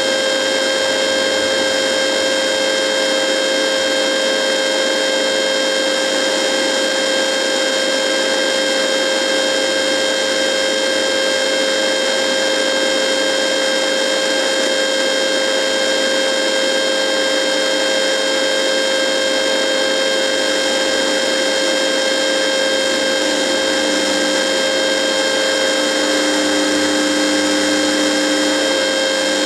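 A radio buzzing: a steady hiss mixed with several fixed humming tones, with an extra lower tone coming in about 26 seconds in.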